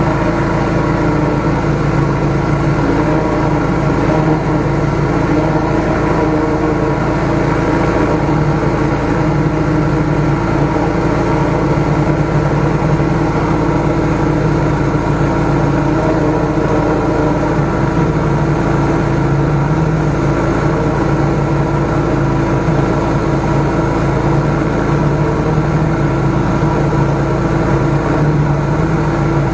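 Small engine of a 13-horsepower high-pressure sewer jetter running steadily at constant speed, driving the jetting pump.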